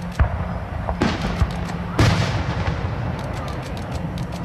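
Fireworks going off: three sharp booming bursts about a second apart, each followed by rapid crackling.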